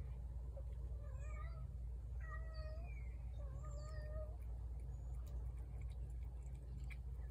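A cat meowing: a few short, wavering calls in the first four seconds, then they stop. A steady low hum runs underneath.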